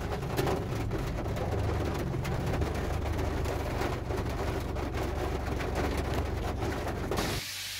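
Inside a car in heavy rain: a steady low rumble from the car, with raindrops striking the roof and windshield as many small clicks over a constant hiss. The sound cuts off abruptly near the end.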